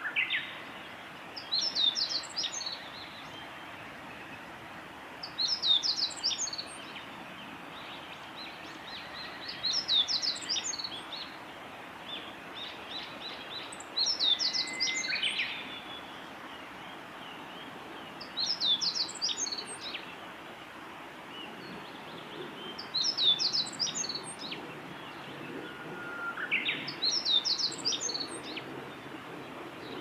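Male meadow bunting singing: a short, rapid jumble of high notes lasting about a second, repeated seven times at intervals of roughly four seconds.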